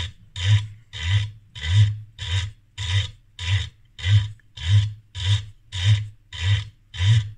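Flann programmable rotary attenuator being cranked back by hand: its drive mechanism gives a steady train of rasping strokes, about one and a half to two a second.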